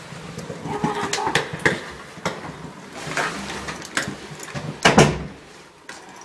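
A string of light knocks and clicks, with one louder thump about five seconds in.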